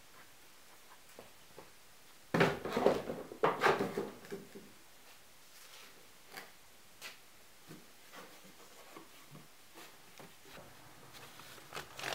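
Sparse knocks, scuffs and clicks of someone moving about on a concrete floor, with a cluster of loud clattering knocks about two seconds in. Near the end, a cardboard shoe box is picked up and handled.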